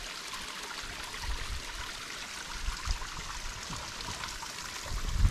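Spring water running in a small mountain stream: a steady rushing trickle. Low thuds come in near the end.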